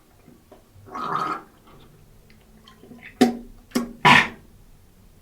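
A person gargling, in short separate bursts: one about a second in, then three more close together near the end, the last of them the loudest.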